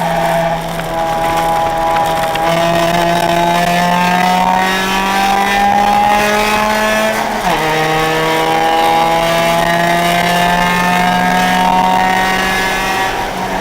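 Car engine heard from inside the cabin under hard acceleration on track, its pitch climbing steadily. About halfway through it drops sharply with an upshift, then climbs again.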